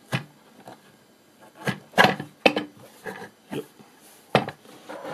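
Wooden pedal assembly being handled and slid into a wooden base: a string of knocks and short scrapes of wood on wood, loudest about two seconds in.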